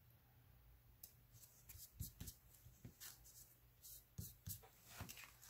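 Faint paper rustling and rubbing as fingers smooth a freshly glued strip of old ledger paper flat onto a paper envelope, with several soft, short strokes.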